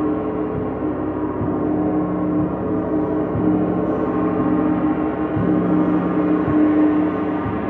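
A large gong played with a soft mallet in a sound bath, struck gently and repeatedly about once a second. Its many overtones ring on and overlap into one continuous sustained tone.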